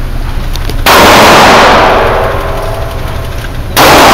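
Two gunshots about three seconds apart, each very loud and followed by a long echoing tail off the walls of an indoor range.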